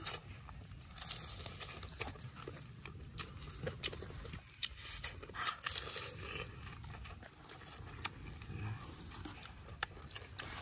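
Two people eating crispy fried chicken feet and fresh lettuce: irregular crunching and chewing with sharp crisp bites.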